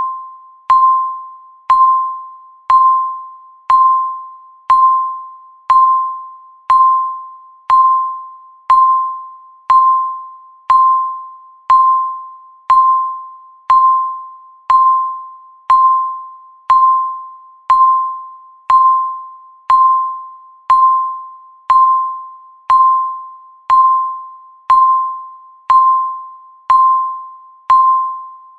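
Countdown timer's electronic tick sound: a single ringing ping once every second, each struck sharply and fading away before the next, in a steady even beat.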